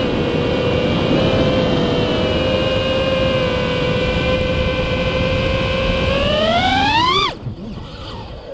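FPV quadcopter's BotGrinder brushless motors whining steadily, then rising sharply in pitch as the throttle goes up about six seconds in, and cutting off suddenly near the end, leaving a much quieter stretch.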